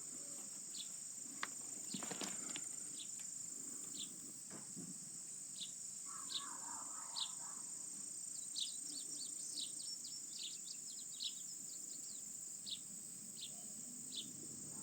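Outdoor summer ambience: a steady high-pitched insect drone, with short bird chirps scattered throughout and a quick run of chirps about halfway through.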